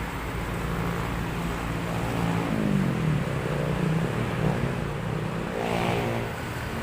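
A motor vehicle engine passing, its pitch rising and falling as it swells and fades, over a steady low traffic rumble.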